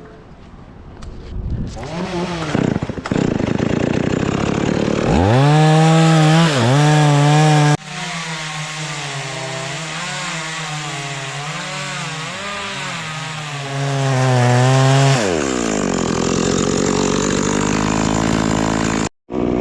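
Stihl chainsaw revving and cutting through wood, its pitch dipping again and again under load. About fifteen seconds in the pitch falls steadily as the throttle is let off.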